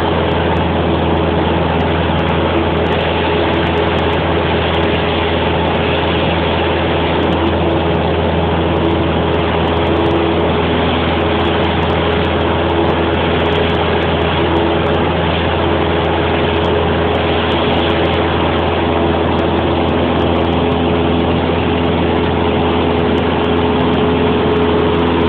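Light single-engine propeller plane's engine running steadily at takeoff power through the takeoff roll and climb-out, heard from inside the cockpit; its pitch holds steady throughout.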